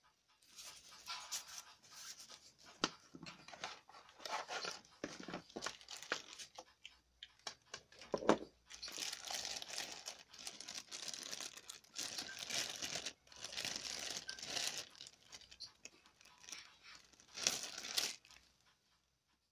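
Clear plastic packaging bag crinkling and rustling as hands unwrap the accessory cables, in irregular bursts with short pauses.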